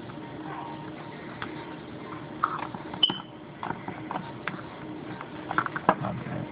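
Scattered small clicks, taps and a brief metallic clink from a screwdriver and plastic headset parts being handled while a screw is fitted into the headphone hinge. Clicks cluster near the end.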